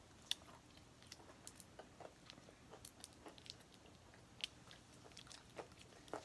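Faint chewing of a chewy, taffy-like candy: scattered soft mouth clicks and smacks.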